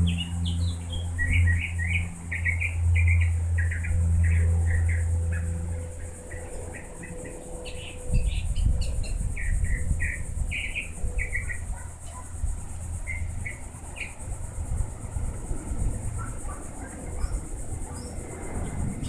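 Small birds chirping in quick clusters of short notes, over a steady high-pitched insect drone. A low hum runs underneath for the first six seconds or so.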